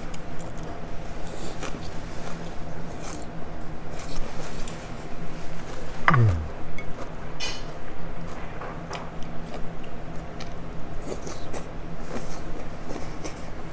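Eating noodle soup: chopsticks and a soup spoon clicking and clinking against a ceramic bowl, with noodles being slurped and chewed, over a steady low hum. A short falling squeak about six seconds in.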